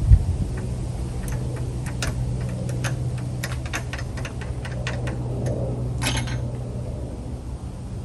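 Irregular metallic clicks and taps of hand tools working on a car battery under the hood, over a steady low hum, with a single thump right at the start.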